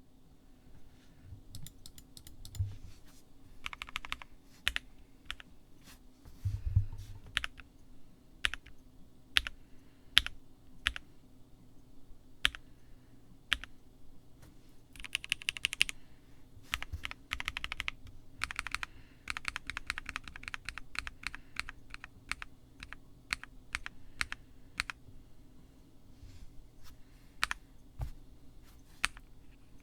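Key presses on a custom ergonomic mechanical keyboard with a POM plate, Durock POM linear switches and POM jelly keycaps. There are scattered single keystrokes and several quick runs of rapid presses.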